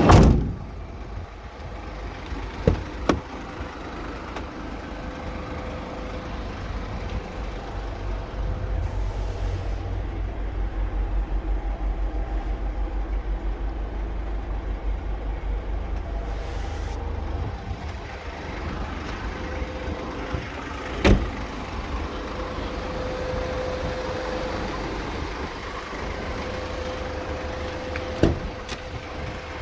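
Mercedes Sprinter 316 CDI diesel van running, a steady low rumble with a rhythmic throb through the middle. A few sharp clicks come through it, two close together a few seconds in and others later on.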